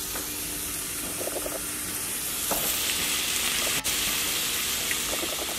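Thinly sliced onions sizzling steadily in butter in a skillet as they cook down. A slotted spatula is stirred through them, adding light scrapes.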